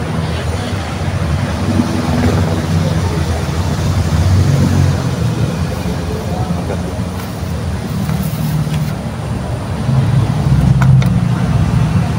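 A motor vehicle engine running steadily nearby, a low hum that gets somewhat louder near the end.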